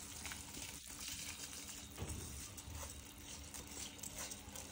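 Water boiling in a kadhai, a faint steady bubbling hiss, with washed rice being tipped into it and a few soft splashes.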